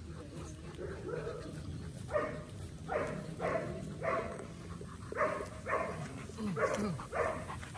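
Doberman in a mating tie making a run of short, breathy whimpering huffs, about eight of them in irregular succession from about two seconds in.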